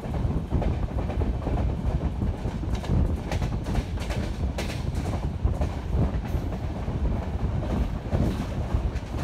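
Jan Shatabdi Express passenger train running at full speed, heard from an open coach door: a steady heavy rumble of wheels on rail, with irregular sharp clacks as the wheels pass rail joints and points.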